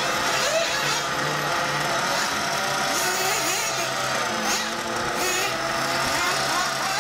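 Radio-controlled off-road buggy's engine running at high revs on a dirt track, its pitch rising and falling as it accelerates and slows through the corners and jumps.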